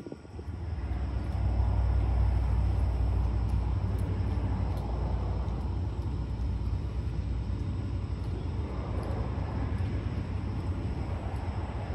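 Steady low rumble with a fainter hiss above it, starting just after the opening and holding on at an even level.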